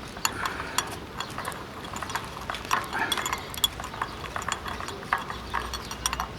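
Irregular metallic clicks and clinks of a 15 mm spanner turning the bearing cone nut onto a BMX rear hub axle.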